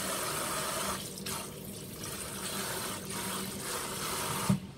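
Kitchen tap spraying cold water onto blanched spinach in a stainless steel pot, a steady rush of running water. About four and a half seconds in there is a single loud thump, after which the water sound becomes quieter.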